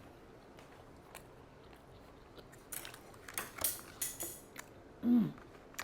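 Chewing food close to the microphone: a quiet start, then about halfway in a run of wet mouth clicks and soft crunches, followed by a short falling hummed "mm".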